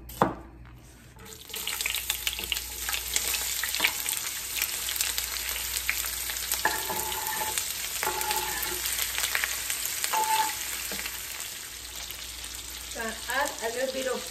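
A knife chop on a wooden cutting board, then sliced yellow onions sizzling steadily in hot olive oil in a frying pan from about a second and a half in: the start of caramelizing them.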